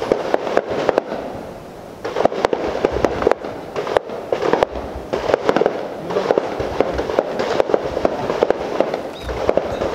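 Rapid, irregular gunfire from other shooters on the range: many sharp shots, several a second, coming in bursts with a brief lull about a second in.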